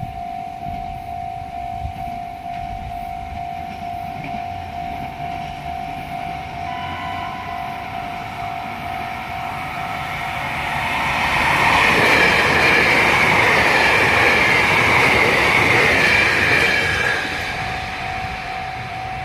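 Level crossing warning bell ringing as a JR Hokkaido 789 series 0-subseries electric express approaches. The train sounds its electronic horn briefly about seven seconds in, then passes with a loud rush of wheel and rail noise lasting about six seconds that drowns out the bell. The bell is heard again near the end.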